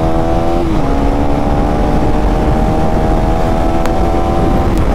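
KTM Duke 390's single-cylinder engine under hard acceleration, shifting up about a second in and again near the end, with the revs climbing steadily between shifts, over heavy wind rush.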